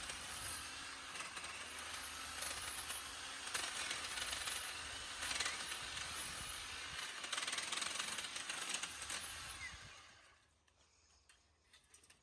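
Battery-powered EGO multi-tool with its hedge trimmer attachment running, its blades cutting through thick woody hedge stems, with a high motor whine and several louder surges as it meets heavier wood. It stops about ten seconds in.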